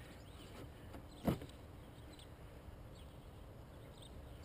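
Quiet handling sounds of a rope knot being tied around a plastic pipe crossbar, with one short knock about a second in.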